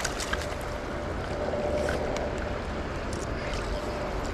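Steady rush of a shallow freestone river's current flowing over rocks, with a few faint ticks and splashes and a low rumble that grows near the end.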